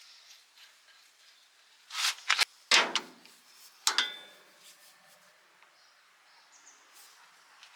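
Metal tools and parts being handled: a quick cluster of sharp knocks and clinks about two to three seconds in, then one more knock about four seconds in that rings briefly.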